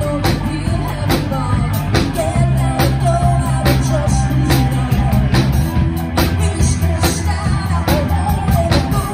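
Live rock band playing: a woman singing lead over electric guitar, electric bass and a drum kit keeping a steady beat.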